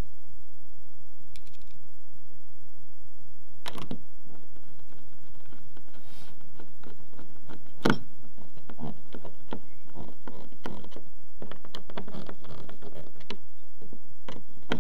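Phillips screwdriver driving screws for a paddle keeper into a plastic kayak hull by hand: small clicks, taps and scrapes of tool and fitting, with a sharp knock about four seconds in and a louder one about eight seconds in, then a quick run of small ticks.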